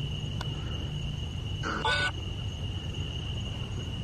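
Crickets chirping in a steady high drone, with one short pitched call about two seconds in.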